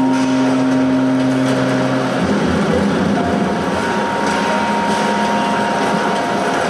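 Documentary soundtrack played over a hall's loudspeakers: a steady mechanical rumble with a low hum, whose pitch changes about two seconds in.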